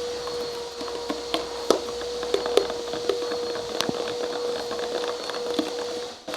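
Borax-and-glue slime being stirred and worked in a bowl as it pulls together: scattered sharp clicks and crackles, over a steady faint tone.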